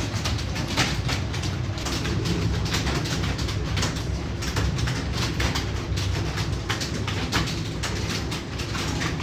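Computer keyboard keys clicking in an irregular stream of fast typing, over a steady low hum.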